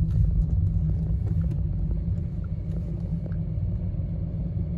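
Car driving slowly along a paved road, a steady low rumble of engine and tyres.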